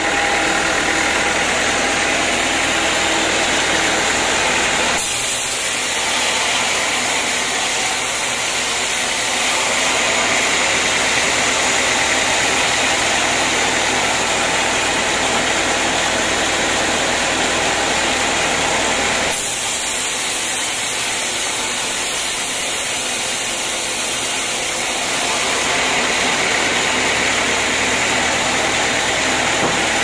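Band sawmill running and sawing a teak log lengthwise: a loud, steady mechanical noise of the machine and blade in the wood, which changes abruptly about five seconds in and again about nineteen seconds in.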